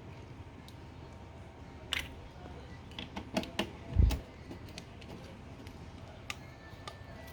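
Small plastic clicks and taps from an aroma diffuser being handled, its buttons pressed and parts moved, with one louder dull thump about four seconds in.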